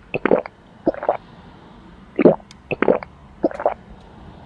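Loud gulps of a person drinking through a straw from an insulated tumbler, about six swallows spaced roughly half a second to a second apart.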